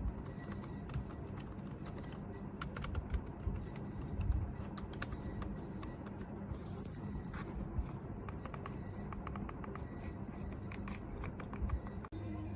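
Typing on a compact Bluetooth keyboard with round retro-style keycaps: irregular runs of light key clicks, busiest a few seconds in and again near the end.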